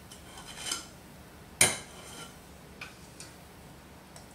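Stainless steel spring-release cookie scoop working through dough in a glass mixing bowl: a brief scrape, then one sharp metal-on-glass clink about one and a half seconds in, followed by a couple of faint clicks.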